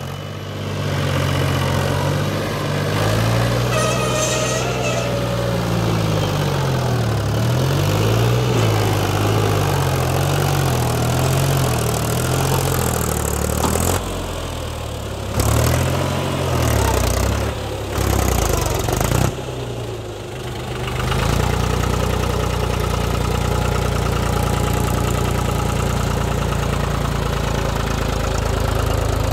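Mahindra 265 DI tractor's three-cylinder diesel engine working in sand, its speed rising and falling over and over. The sound breaks off abruptly a few times in the middle, then the engine settles into steady, even running.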